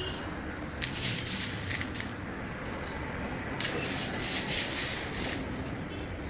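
Dry split lentils (dal) rustling and pattering as handfuls are scooped and swept on a steel plate and poured into a glass jar, in two stretches of grainy rustle over a steady low background noise.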